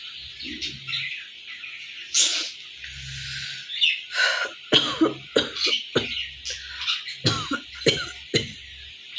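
A woman coughing: one short cough about two seconds in, then a quick string of short coughs through the second half.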